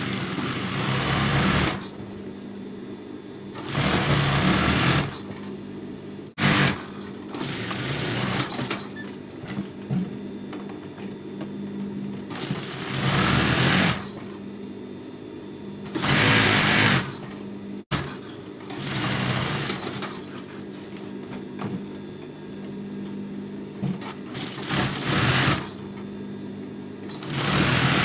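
Industrial sewing machine stitching along a fabric edge in short runs of a second or so, about nine times, with pauses between while the fabric is turned and guided. A steady motor hum carries on through the pauses.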